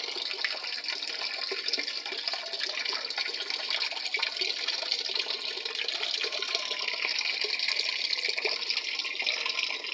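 Top-load automatic washing machine filling: water pours steadily into the tub through the inlet valve, with a constant hiss. The fill shows the newly replaced control board is working the water inlet again.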